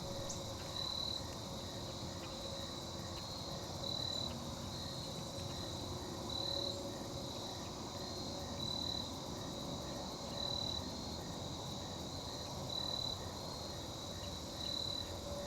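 Insects chirping: a high chirp repeated at a steady, even pace over a low, even background hiss of outdoor ambience.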